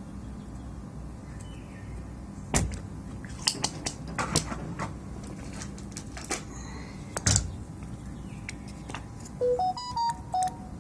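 Small tools and parts being handled on an electronics workbench: a handful of sharp clicks and knocks, scattered irregularly. Near the end comes a short run of electronic beeps that step up and then back down in pitch, like a little melody, over a faint steady hum.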